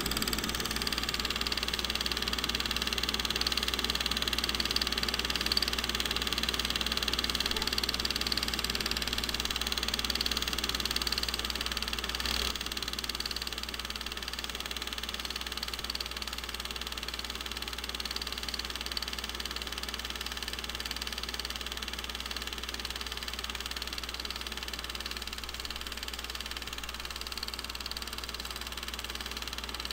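Steady mechanical running noise with a low hum and hiss, typical of a film projector running while a silent home movie is transferred. It eases off a little about twelve seconds in.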